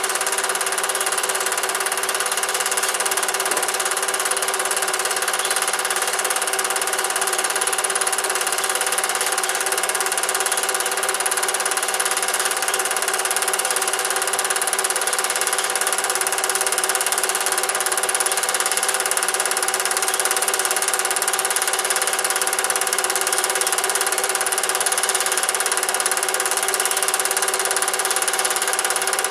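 Cine film projector running: a steady mechanical whir from its motor and film transport, with several fixed tones that never change.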